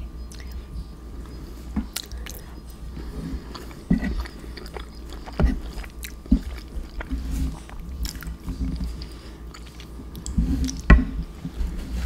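Close-miked chewing of soft, saucy mac and cheese: wet mouth sounds with irregular small clicks and a few sharper knocks, the loudest one near the end.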